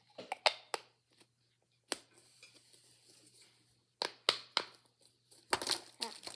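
Plastic pop tube fidget toy being worked as a snapper: a string of sharp snaps in irregular clusters, with a lull in the middle.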